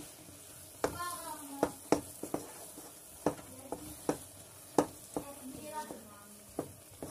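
Spatula stirring a thick semolina and date halwa in a pan: irregular knocks and scrapes against the pan, about nine in all, over a faint steady sizzle. The halwa has thickened enough to leave the sides of the pan, the sign that it is done.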